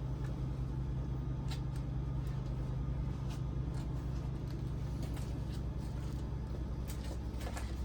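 A steady low mechanical hum, such as an air conditioner or fan, with a few faint light knocks and clicks of things being handled over it.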